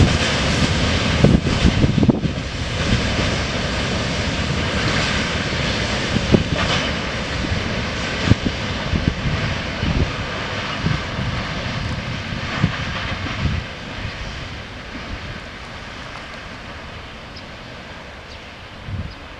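Freight train wagons rolling away over the rails: a steady running noise with scattered knocks of wheels over rail joints, fading as the tail of the train recedes.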